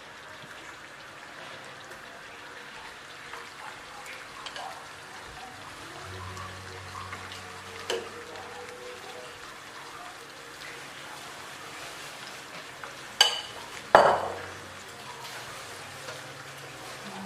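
Martabak telur, a thin dough sheet with raw egg filling, sizzling steadily as it fries in oil in a nonstick frying pan. Two sharp knocks come near the end.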